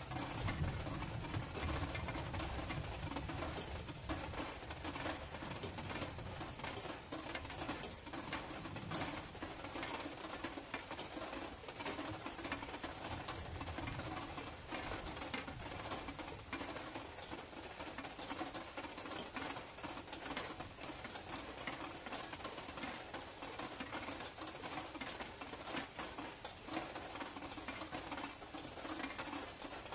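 Rain falling steadily: a dense hiss with many small drop ticks. A low rumble sits underneath in the first couple of seconds.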